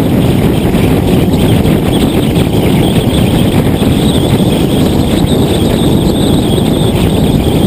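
Heavy wind buffeting on the microphone of a low-mounted camera on a Nissan GT-R driving at speed, mixed with road noise; a steady, loud rumble.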